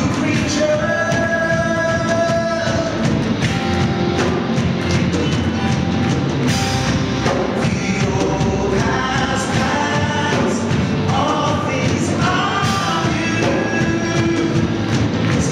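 Live gospel worship song: several singers in harmony over keyboard, electric bass guitar and a steady beat, with held sung notes.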